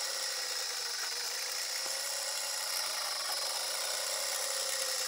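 Homemade CNC laser engraver running as its gantry moves the diode laser head: a steady high whine with hiss, from the stepper motors and the laser module's cooling fan.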